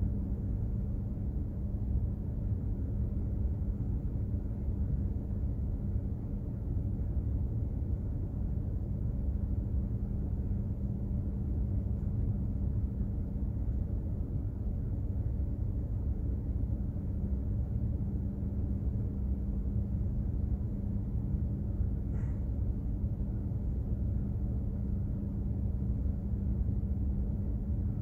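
Steady low rumble and drone of a container ship's engine and machinery while underway, with a constant hum running through it.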